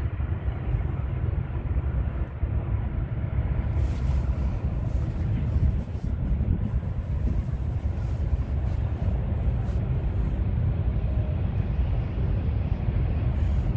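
Distant freight train rumbling steadily as its string of freight cars rolls along the grade, mixed with wind buffeting the microphone.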